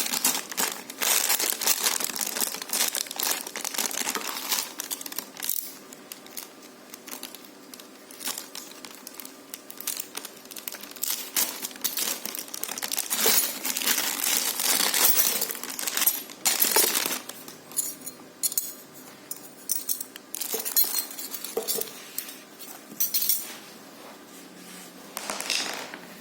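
Plastic packaging crinkling and rustling as a parcel is unwrapped by hand, in irregular bouts, with occasional light clinks of hard parts being handled.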